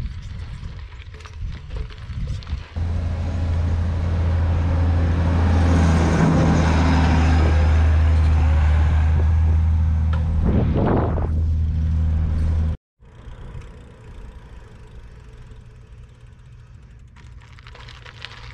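Combine harvester's diesel engine running loud and steady as the machine drives past close by, loudest midway, dropping in pitch just before it cuts off abruptly. Lighter clicking and rattling before it, and a quieter steady noise after.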